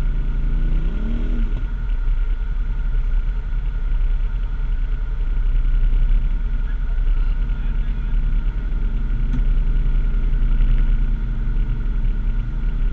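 Can-Am ATV engine idling steadily with a low, even rumble and a faint steady whine above it.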